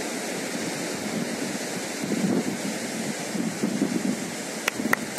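Steady beach surf mixed with wind noise on the microphone, with two sharp clicks in quick succession near the end.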